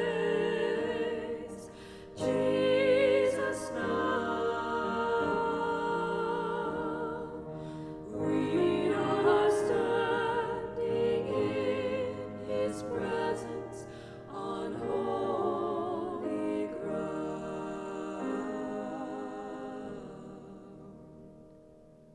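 Three women's voices singing a slow worship song together, with piano accompaniment. The music fades out near the end.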